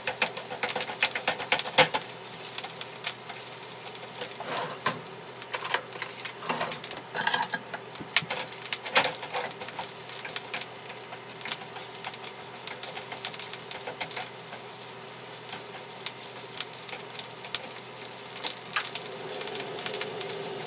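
Rice and scrambled egg frying in oil in a nonstick pan, sizzling steadily while a spatula stirs and scrapes through it. The spatula knocks against the pan often, most thickly in the first half.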